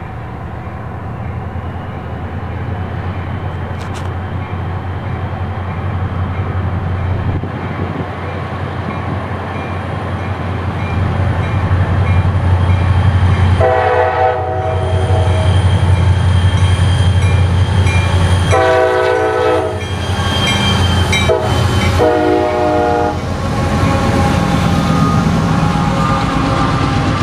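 A double-stack intermodal freight train rumbles and clatters past. From about halfway in, an oncoming diesel freight locomotive sounds its chord air horn in the grade-crossing pattern: long, long, short, long.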